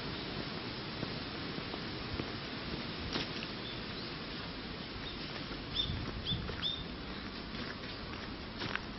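Footsteps crunching along a gravel path scattered with dry leaves, over a steady outdoor hiss. A little past the middle, a small bird chirps three quick times.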